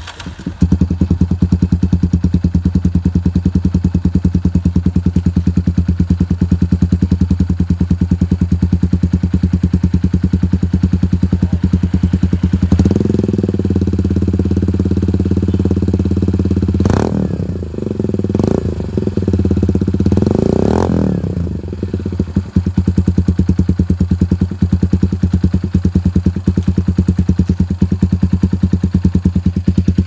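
Kawasaki W175's air-cooled single-cylinder four-stroke idling through an aftermarket Rockvan exhaust with an even, steady beat. About 13 seconds in it is held at higher revs for about eight seconds, with three short throttle blips, then it settles back to idle.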